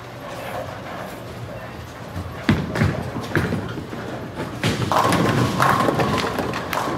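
Bowling alley: a heavy thud of a bowling ball landing on the lane about two and a half seconds in, a few more knocks, then a louder clatter of pins being struck in the last two seconds, over the steady din of the hall.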